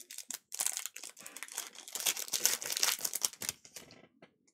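The wrapper of a 2020-21 Panini Donruss basketball card pack being opened and crumpled in the hands: a dense crinkling crackle that starts about half a second in and dies away near the end.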